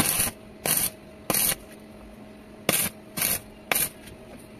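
Stick-welding arc struck in six short bursts, each about a quarter second, in two groups of three. These are tack welds building up new metal on the magnet end of a motorcycle crankshaft held in a lathe chuck.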